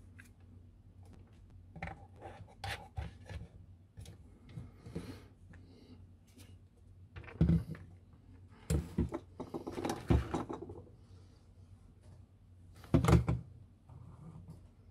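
Telescope kit parts being handled and fitted together on a workbench: irregular knocks, rubs and scrapes, with the loudest clatter just past the middle and again near the end.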